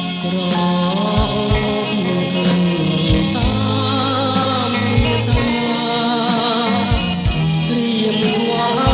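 Background music: a Khmer-language song, with a sung vocal over a steady beat.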